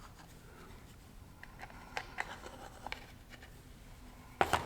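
Quiet handling of small parts and an adhesive tube on a workbench: scattered light ticks and scrapes, with a louder clatter of sharp knocks near the end.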